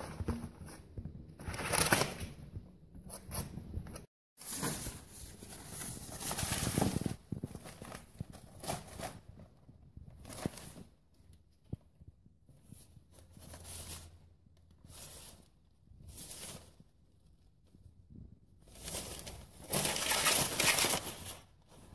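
Crumpled newspaper rustling and crinkling in irregular bouts as a lop-eared rabbit digs and burrows through it in a cardboard box. The longest, loudest bouts come about five seconds in and near the end.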